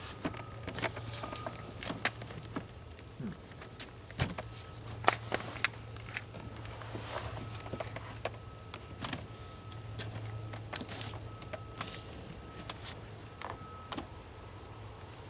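Plastic inside door trim panel of a car being lifted and worked loose from its clips: irregular clicks, taps and knocks over a steady low hum.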